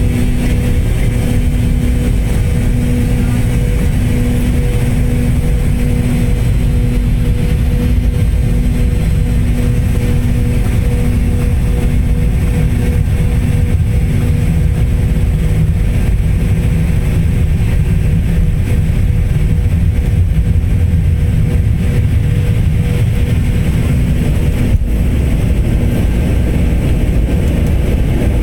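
Jet airliner heard from inside the cabin during takeoff: a loud, steady low rumble of engines and airflow, with a steady hum that fades out about two-thirds of the way through.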